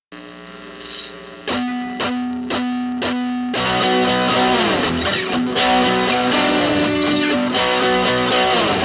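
Instrumental intro of an alt-folk song led by guitar with effects: a few sharply picked notes about half a second apart, then at about three and a half seconds the music fills out and gets louder with held notes.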